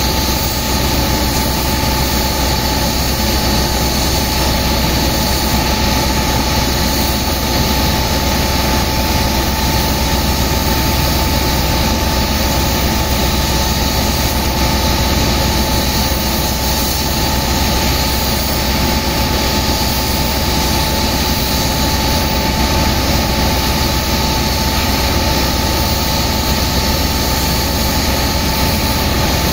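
Steady, loud drone of a pump engine running the high-pressure hoses, with the hiss of the water jets blasting sand loose.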